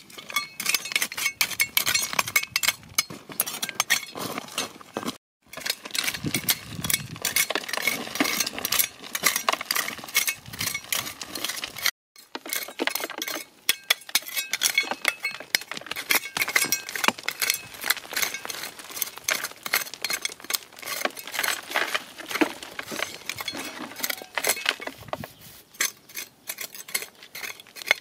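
Dense, irregular clinking and clicking of hard stones knocking together, broken by two brief silences.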